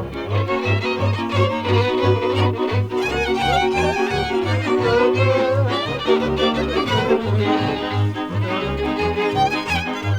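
Transylvanian folk string band playing a dance tune: an ornamented fiddle melody over bowed chords and a bowed double bass pulsing on the beat, about three notes a second.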